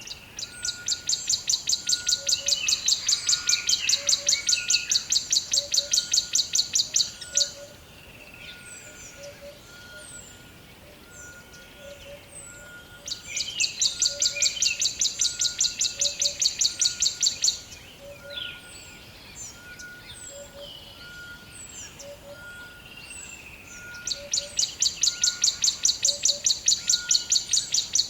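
Rainforest ambience: a fast, high pulsing trill comes in three long bouts of several seconds each, near the start, about halfway and near the end. Between and over them come scattered bird chirps and two short notes, one high and one lower, each repeating about once a second.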